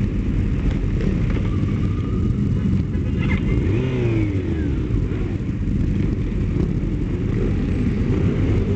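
Sport motorcycles riding together in a group, heard from on board one of the bikes: a steady engine rumble, with one engine revving up and back down about four seconds in.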